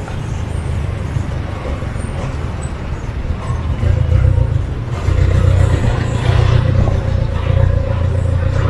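Busy street traffic: motor vehicle engines running close by, a deep rumble that grows louder about halfway through.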